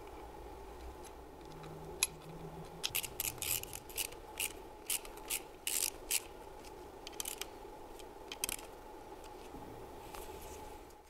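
Screwdriver turning the housing screws of a rebuilt car alternator: a run of short metallic scraping clicks at an irregular pace, over a steady low hum.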